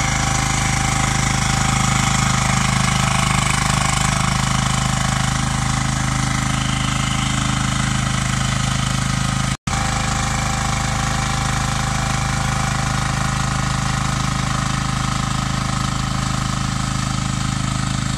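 Shanding SD12 mini excavator's engine running steadily as the machine is worked, cutting out for a split second about halfway through.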